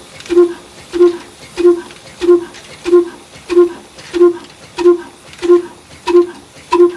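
Old Ruston 35 HP stationary diesel engine running slowly and evenly, its exhaust beating about one and a half times a second. Each beat is a short pitched note with a sharp click.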